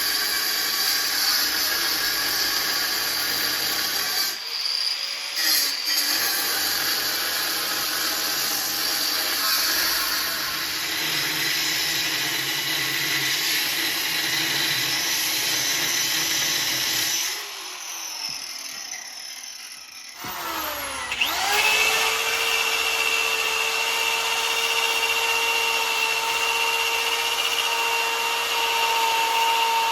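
Electric angle grinder working on a cast copper piece, a rough grinding whir. It cuts out briefly a little after 4 seconds, winds down again around 17 seconds, and restarts after about 21 seconds, then spins with a steady whine.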